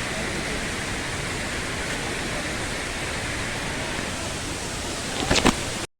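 Steady rush of a waterfall, close by. A couple of brief knocks come near the end, and then the sound cuts off abruptly.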